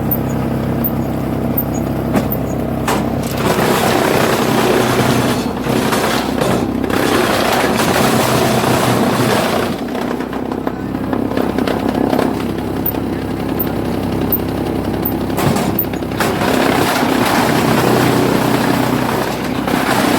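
Heavy-duty wood chipper machine running, with a steady low hum under several long stretches of louder, rough, grinding noise.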